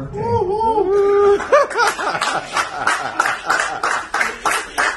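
A person's voice calling out with laughter, then hands clapping steadily, about three claps a second, from about two seconds in.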